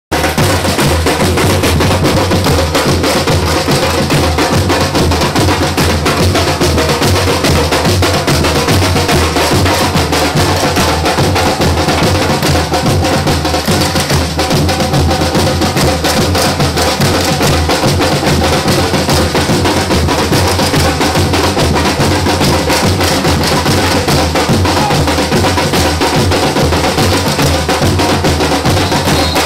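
Carnival bloco drum section playing: deep bass drums keep a steady beat under many quick, sharp higher percussion strokes, loud and without a pause.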